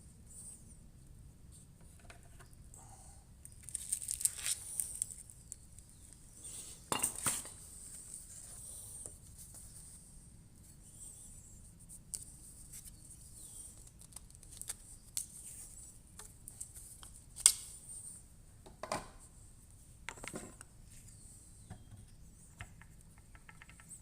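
Scattered clinks, clatters and knocks of metal parts being handled and fitted together by hand, with a few busier spells and one sharp clank about 17 seconds in.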